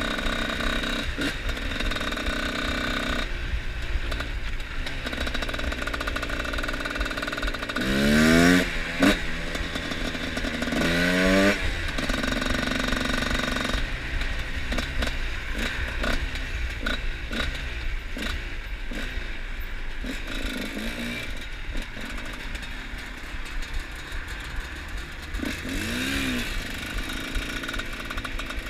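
Two-stroke single-cylinder trail motorcycle engine running, revving up hard twice about 8 and 11 seconds in, with a shorter rev near the end.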